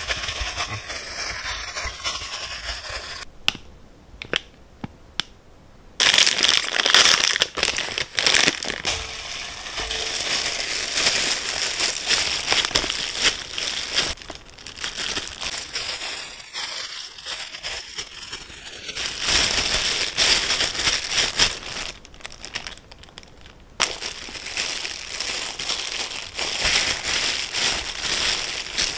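Disposable plastic gloves crinkling and rustling as gloved hands knead and shape cookie dough. It comes in several long stretches with short quieter pauses between.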